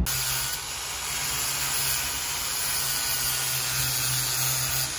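Angle grinder with a flap disc grinding down wood to flatten the rudder head, a steady even hiss with no pauses.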